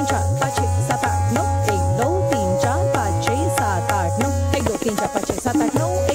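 Tabla playing rhythmic accompaniment for Kathak dance, with dense sharp strokes and bass-drum strokes that swoop upward in pitch. A held melodic note sounds beneath it and stops about four and a half seconds in.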